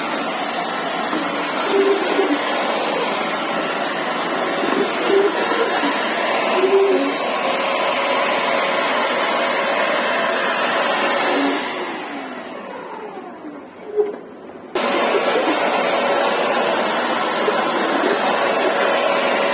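Multifunctional vacuum cleaner's motor running steadily while the returned unit is tested. About twelve seconds in it is switched off and whines down in pitch. There is a click, and it starts again at full speed a few seconds later.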